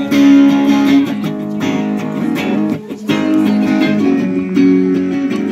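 Two electric guitars played together through small practice amplifiers, chords and picked notes ringing, with a brief drop-off a little under three seconds in.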